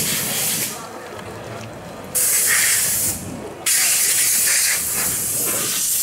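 Steady hiss of rain, which drops away about a second in and cuts back in abruptly twice.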